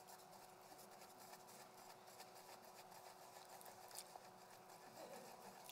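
Near silence: room tone with a faint steady hum and a few soft clicks.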